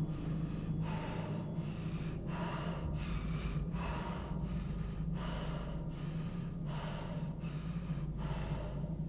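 A person breathing hard and fast: quick, even gasping breaths, about one every 0.7 seconds, over a steady low hum.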